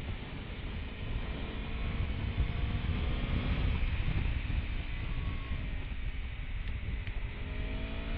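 Aprilia Tuono V4 motorcycle's V4 engine running under way, its pitch slowly rising and falling, mostly buried under heavy wind rumble on the microphone.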